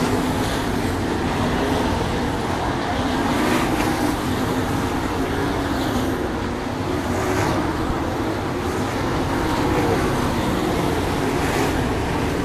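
A field of 410 sprint cars racing on a dirt oval. Their 410-cubic-inch V8 engines run hard, several at once, the pitch rising and falling as the cars pass.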